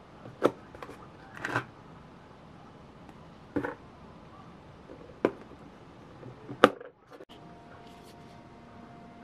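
Hands handling cardboard and paper-card packaging: five or so scattered sharp taps and short rustles. After a brief dropout near the end, a faint steady tone.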